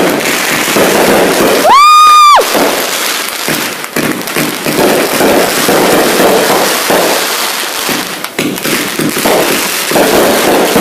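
Fireworks going off in quick succession: a dense run of crackling pops and bangs, with a loud, shrill whistle lasting under a second about two seconds in.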